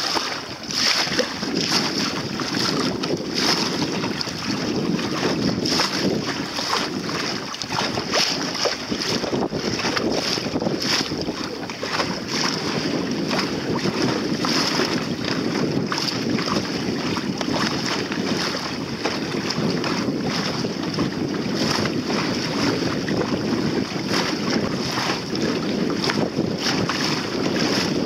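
Water rushing and splashing against the hull of a small sailboat under sail, with wind buffeting the microphone. The noise is steady, broken by frequent short slaps.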